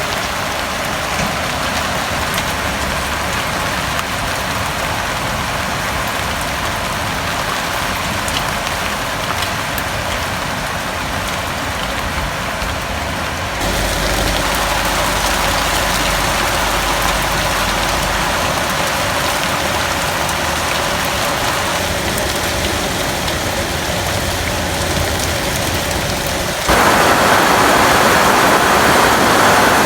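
Heavy rain falling steadily, a continuous hiss of rain on surfaces. The sound changes abruptly about halfway through and again near the end, where it gets louder.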